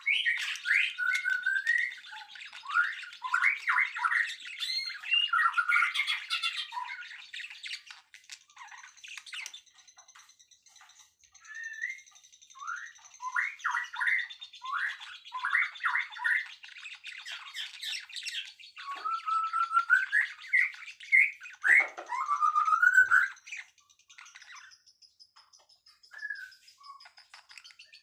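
Songbirds singing: two long bouts of quick, loud rising and falling whistled notes, over a fainter, steady high-pitched trill. The song pauses briefly around a third of the way in and drops away near the end.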